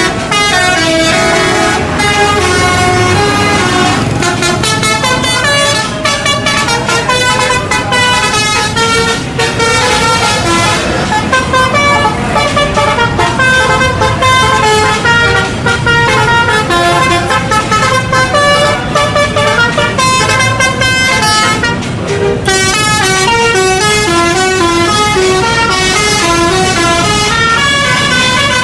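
Telolet musical air horn playing quick melodies of short notes that step up and down in pitch, one note after another. There is a short break about three quarters of the way through, then a new phrase starts.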